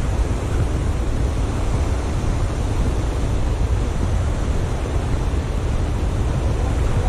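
Steady wind rumbling on the microphone over the wash of surf breaking on a sandy beach.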